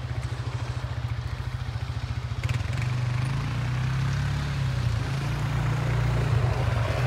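Low, steady engine drone, pulsing quickly for about the first two and a half seconds, then running smoother.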